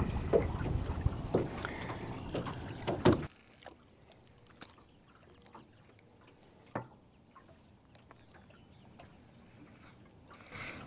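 Wind buffeting the microphone and choppy water lapping against a small fishing boat's hull, with a few light knocks. After about three seconds it cuts to near silence with only a few faint ticks.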